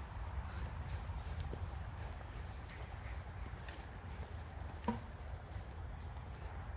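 Steady high-pitched insect chirring over a low rumble, with one short click about five seconds in.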